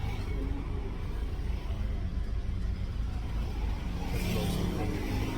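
Steady low rumble of a moving car heard from inside the cabin, with a brief hiss about four seconds in and faint voices near the end.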